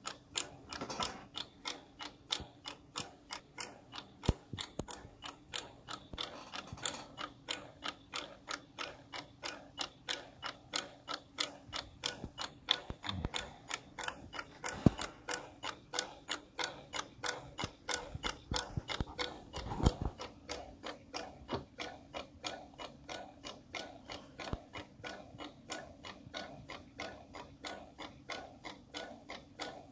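Drive motor and geared drive rolls of a used MIG-welder wire feeder, run by an Arduino through an H-bridge driver, ticking in a steady rhythm of roughly three sharp clicks a second over a faint low hum. A few clicks are louder, one in the middle and one about two-thirds through.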